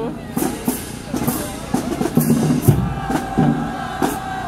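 Marching band drumline playing a cadence, bass drum and snare strikes in a steady beat, with a held horn note joining about three seconds in.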